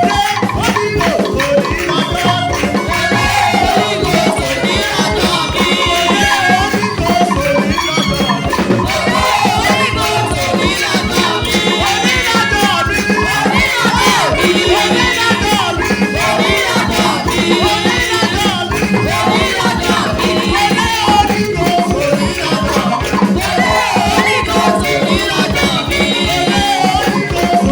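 Live praise-and-worship music: many voices singing over a steady beat of drums and rattling shakers.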